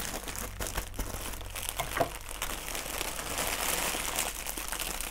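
Grey polyethylene mailer bag crinkling and rustling as it is cut open with scissors and a hand rummages inside it among the clear plastic-wrapped contents.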